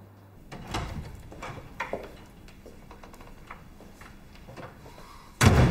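A wooden office door being opened, with a few sharp knocks and clicks, then fainter ticks, and a loud heavy thud near the end.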